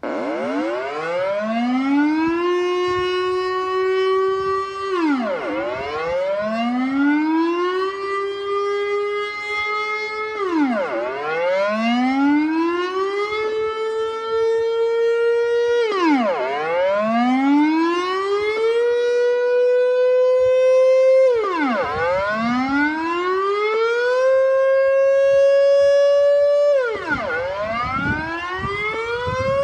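Dutch civil-defence air raid siren sounding its public test signal, starting abruptly: a rising-and-falling wail in which each cycle climbs for about three seconds, holds, then drops quickly. The cycle repeats about every five and a half seconds, and the held pitch creeps a little higher with each cycle.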